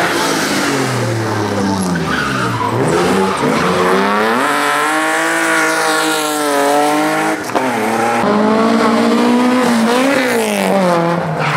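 Competition car's engine revving hard and falling back again and again as the car is driven through a slalom course. There is a sharp lift off the throttle about seven seconds in.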